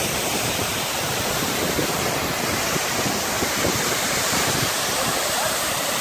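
Waterfall pouring down a rock face: a steady, loud rush of falling water.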